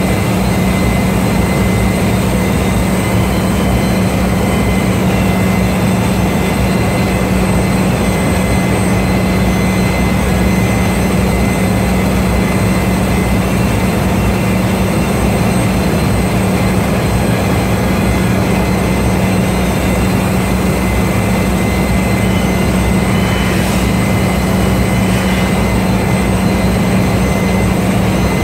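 Loud, steady machinery drone with a low hum and faint thin high whines, unchanging throughout: the running machinery of a ship's engine room.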